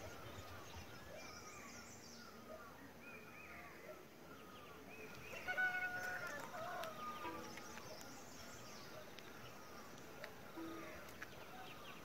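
Many birds calling and chirping in a dawn chorus, short repeated notes at several pitches, with one louder, longer call made of several stacked tones a little past halfway.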